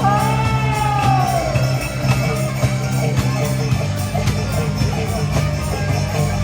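Music with a steady beat and bass line, and a singing voice gliding in pitch near the start.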